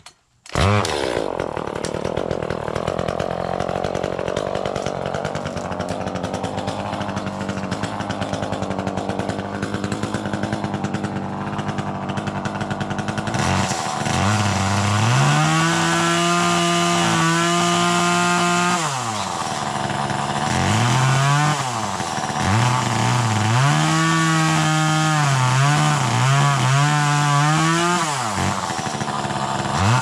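Small gas chainsaw's two-stroke engine starting right at the beginning and idling steadily for about thirteen seconds, then revved up to full speed in long bursts, dropping back between them, as it cuts branches low in a brush pile.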